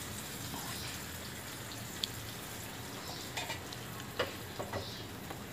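Green chilli, garlic and cumin paste frying in a little hot oil in a small tempering pan: a steady sizzle with a few small pops.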